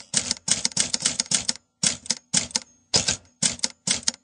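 Rapid mechanical clacking strikes in short clusters of several at a time, separated by brief pauses, over a faint steady hum.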